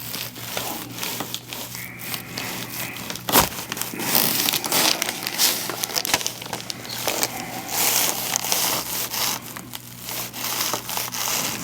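Rustling and crinkling as a patient is shifted and handled on a chiropractic table, with one sharp click about three and a half seconds in.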